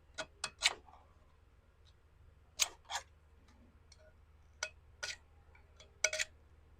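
Razor blade scraping hardened glue off the edge of a ceramic bonsai pot in short, sharp strokes. The strokes come in small groups of two or three, a second or two apart.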